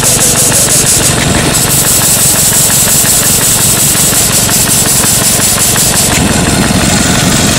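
Quincy 325 two-stage reciprocating air compressor running on a small gasoline engine, pumping: a steady rhythmic chuffing of the pistons under a strong hiss of air blowing out. The hiss breaks off briefly just over a second in and dies down near the end.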